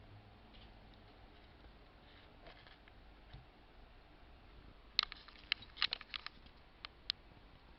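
Quiet room hiss with a few faint ticks, then a cluster of sharp clicks and taps about five to seven seconds in, the loudest at the start of the cluster: handling noise as the camera is moved.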